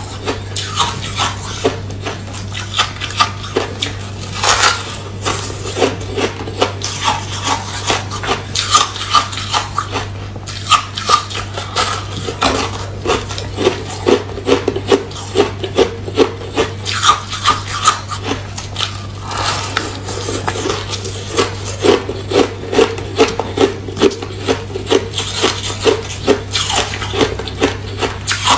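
Porous freezer-frost ice being bitten and chewed: dense, irregular crunching, several crunches a second, over a steady low hum.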